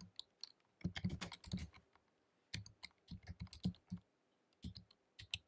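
Typing on a computer keyboard: quick runs of key clicks in three bursts, with short pauses between them.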